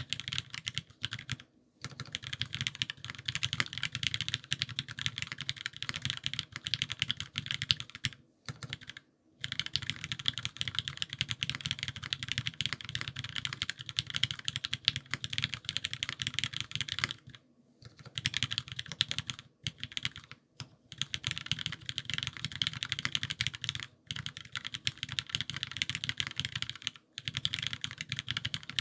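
Typing on a gasket-mount Owlab Voice65 mechanical keyboard with lubed HyperGlide Cherry MX Black linear switches and GMK doubleshot ABS keycaps: a fast, steady run of keystrokes, each with a deep thock and a higher clack, broken by a few short pauses.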